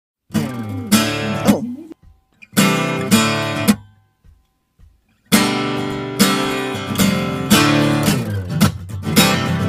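Strummed acoustic guitar music: two short bursts of chords separated by pauses, then steady strumming from about five seconds in.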